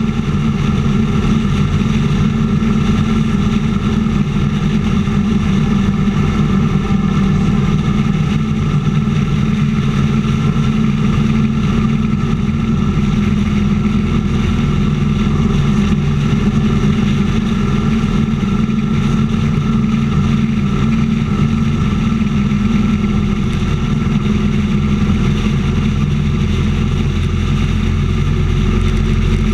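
Motorcycle engine running steadily at highway cruising speed, with wind rushing over the microphone; its note sits a little lower in the last few seconds.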